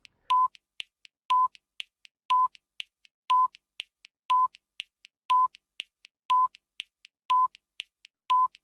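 Electronic countdown timer sound effect: a short beep about once a second, with faint clicks ticking between the beeps, marking the time allowed for the activity.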